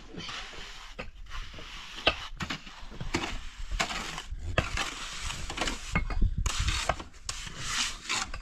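Irregular rough scraping strokes of hand building work, with sharp knocks scattered through.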